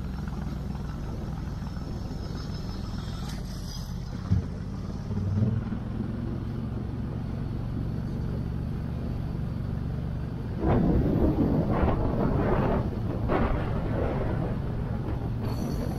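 Motorcycle engine running steadily at low, even revs. About ten and a half seconds in it gets louder, with an uneven rough rushing over the engine note.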